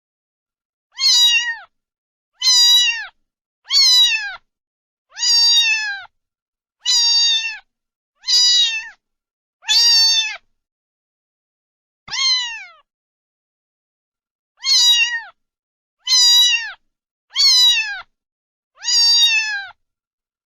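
Domestic cat meowing repeatedly: about a dozen similar, loud meows, each under a second long and each falling in pitch at the end. They come one to two seconds apart, with a longer pause near the middle.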